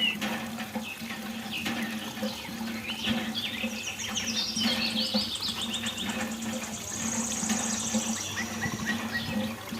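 Small birds chirping with many quick rising and falling notes, then a fast high trill for about a second and a half, over a steady low hum.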